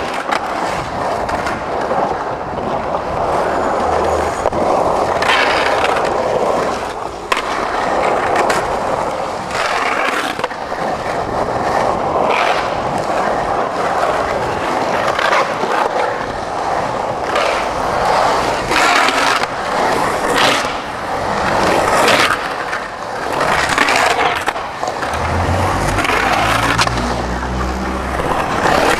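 Skateboard riding in a concrete bowl: Independent trucks grinding the bowl's lip and the wheels rolling and carving over the concrete, with a steady rolling rush and sharp clacks and landings of the board several times.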